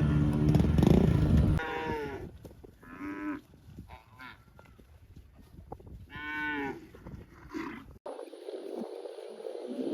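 Cattle mooing: a loud, deep moo at the start, then several shorter, higher-pitched moos, with a cut about eight seconds in to a steady windy noise.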